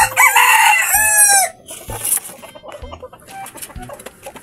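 Rooster crowing once, loud and close, for about a second and a half, followed by quieter clucking.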